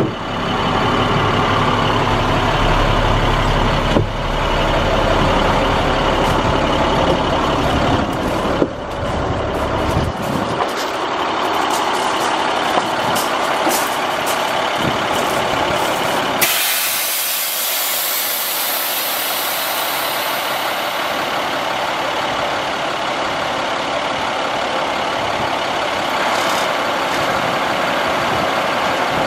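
An International 7500 truck's diesel engine running, full and low in the cab, then thinner once outside. About halfway through, a sudden loud hiss of air starts and fades away over several seconds.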